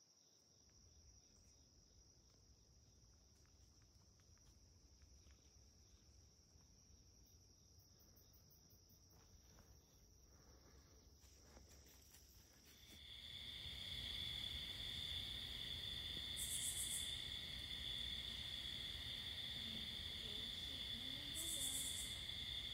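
Insects, crickets or similar, trilling steadily: a faint high drone that grows into a louder chorus of two steady high tones about halfway through, with two brief, higher buzzes near the end.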